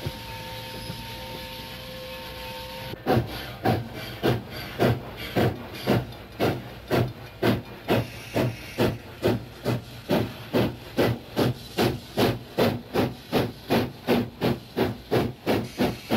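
Steam locomotive exhaust chuffing in a steady rhythm, about two and a half to three beats a second, as the engine pulls its train. Before it, for about the first three seconds, there is a steady rolling-train rumble with a faint steady tone.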